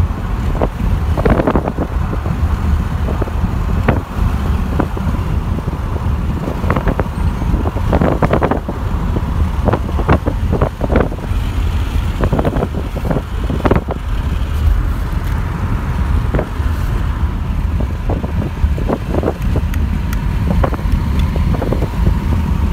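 Inside a moving car's cabin: steady low road and engine rumble, with scattered short knocks and bumps.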